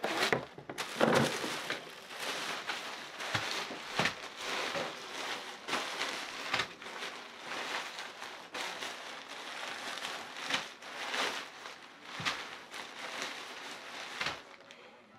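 Thin nylon fabric of a deflated airblown inflatable rustling and crinkling as it is unfolded and shaken out by hand, with scattered sharper crackles.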